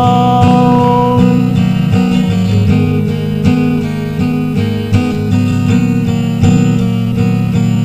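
Acoustic guitar strumming chords in an instrumental passage of a song. A held sung note dies away in the first second.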